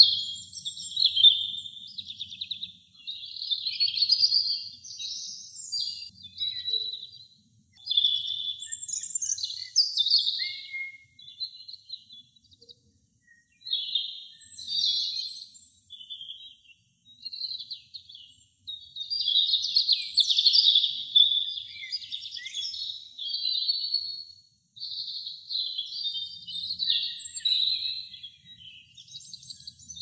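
European robin singing: a run of high, thin, rapidly varied warbling phrases, each a second or two long, separated by short pauses.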